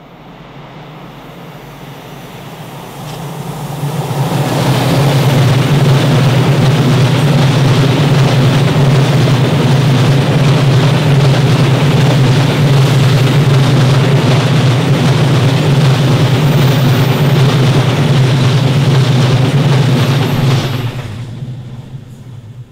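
Freight train of tank wagons passing close by: wheels rumbling on the rails over a steady low drone, building over the first few seconds, holding loud and even, then fading quickly near the end.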